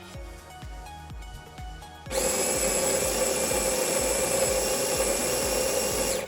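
Jura F70 coffee machine's motor running with a steady, loud whir that starts suddenly about two seconds in and cuts off abruptly, over background music.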